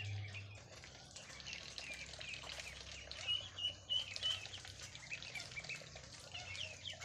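Many small birds chirping and cheeping over one another, with a quick run of loud, high, short notes about three seconds in.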